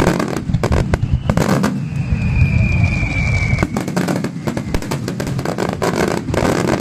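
Starmine fireworks barrage: a rapid run of bursts and crackles over a steady low rumble, with one whistling shell sliding slightly down in pitch for about a second and a half partway through.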